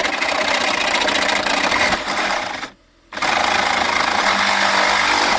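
Reciprocating saw (Sawzall) running and cutting into the truck's dash trim, a rapid buzzing rattle that stops briefly about halfway through and then starts again.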